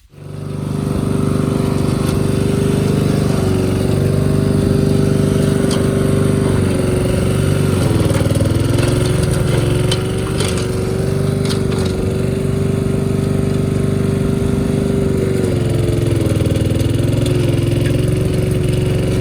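Tractor engine running steadily under load, its pitch sagging briefly twice, about eight and sixteen seconds in.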